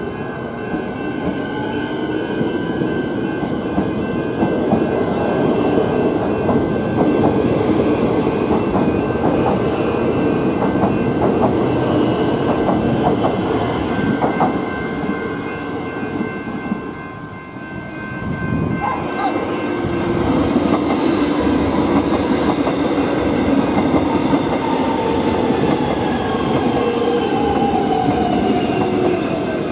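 Melbourne Metro electric suburban trains running through a station, with steady rail and wheel noise and the clatter of wheels over the track. A Siemens Nexas train comes in on the near track partway through. The sound dips briefly about two-thirds of the way in, and a falling whine is heard near the end as another train passes on the far track.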